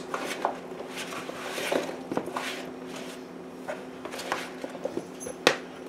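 A utensil tossing oil-coated diced potatoes in a plastic bowl: soft, irregular scrapes and clicks, with one sharper knock about five and a half seconds in. A steady low hum runs underneath.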